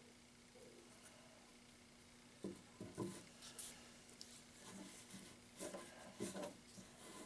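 Faint clicks and scratchy rustling of metal tweezers peeling masking-tape strips off a small painted model car body, in a cluster of small sounds starting about two and a half seconds in, over a faint steady hum.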